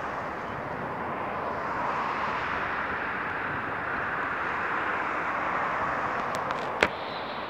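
Airbus A350-900 on approach to land, its Rolls-Royce Trent XWB jet engines giving a steady jet noise that swells slightly about two seconds in. A single sharp click comes near the end.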